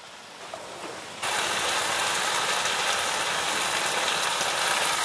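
Chicken kababs cooking in masala gravy in a frying pan: a faint sizzle at first, then from about a second in a steady, louder sizzling hiss.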